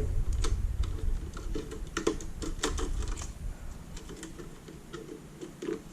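Scattered light clicks and taps from handling an LCD panel's cable and connector during a screen swap.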